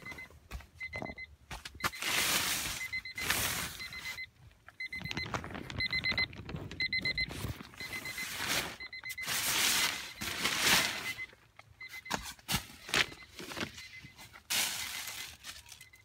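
Plastic sheeting, tarp and bags crackling and rustling as they are handled and rummaged through, with handling clicks. A faint, high, beep-like tone repeats in short pulses throughout.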